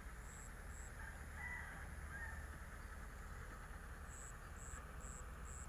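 Rural outdoor ambience: a steady low rumble with short high-pitched chirps repeating about twice a second, two near the start and four near the end.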